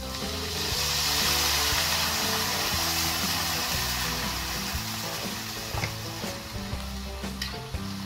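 Water poured into a hot wok of frying shrimp, hissing and sizzling loudly as it flashes to steam. The hiss swells about half a second in and eases off after a few seconds.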